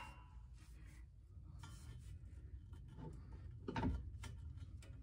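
A few faint knocks and clicks from parts or tools being handled, the clearest a little under four seconds in, over a low steady hum.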